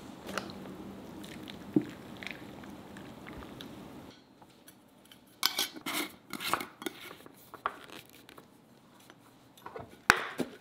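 Metal mason jar lid being screwed onto a glass jar, a quick run of sharp scraping clicks, after a stretch of light taps of glass jars. Just after ten seconds in, a jar is set down on a hard countertop with a sharp knock.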